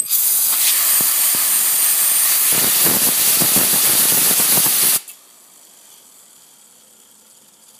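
Compressed air from a blow nozzle hissing loudly onto two spinning gears for about five seconds, cutting off suddenly. Afterwards a much fainter steady whir remains as the gears coast on their ball bearings.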